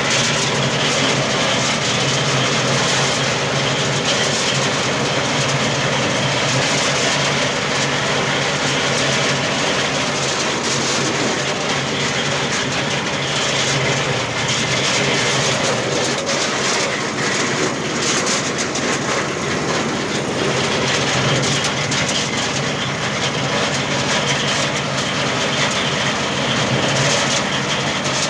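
Areca nut peeling machine running steadily: a constant loud mechanical noise with a low hum under it.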